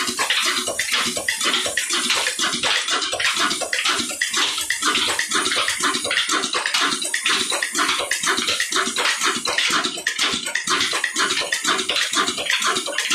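Steady rushing, splashing water noise with a fast pulse, from a belt-driven tubewell water pump running off an old Ruston Hornsby engine.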